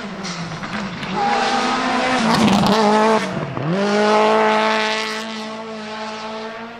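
Subaru Impreza WRX STI Spec C's turbocharged EJ20 boxer four with equal-length headers at full throttle as the rally car passes. Its note climbs and grows loud, dips sharply about three and a half seconds in, then climbs again and holds high while fading away.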